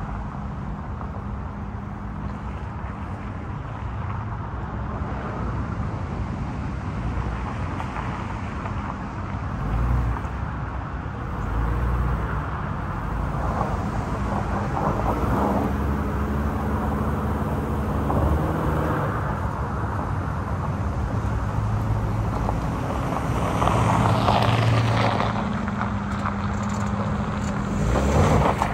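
A 2018 Subaru Outback's engine running at low speed as the car crawls over uneven gravel, with its tyres crunching on loose stones. The engine swells several times, loudest near the end.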